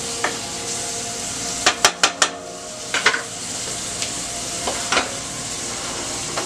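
Chopped seasoning (onion, scallion and herbs) frying in a non-stick pan with a steady sizzle. About two seconds in there is a quick run of four sharp clinks of cookware, and single clinks follow about three and five seconds in.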